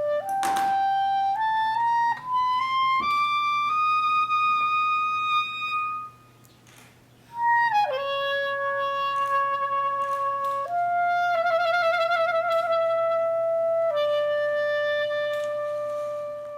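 Solo wind instrument playing a slow melody: notes climbing step by step, a short pause, then a few long held notes, one with a wavering trill.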